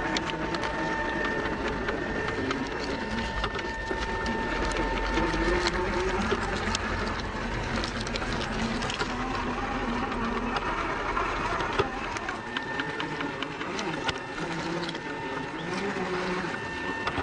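Traxxas TRX-4 RC crawler's electric motor and gearbox whirring at low speed, the whir rising and falling with the throttle, with small clicks and crunches from its tyres on rock, gravel and dry leaves.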